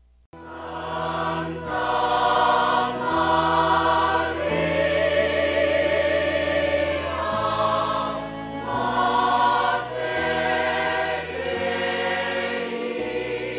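Choral music: a choir singing slow, held chords with vibrato, starting a moment in.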